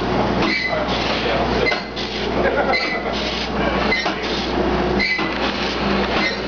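Steam engine-room machinery running: a steady low hum under a rhythmic clanking and hissing, about one stroke a second.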